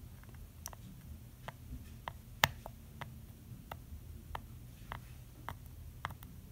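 Faint, irregular small clicks and ticks, about two a second with one sharper click about two and a half seconds in, as a soldering iron tip is worked along the pins of a surface-mount chip, over a low steady hum.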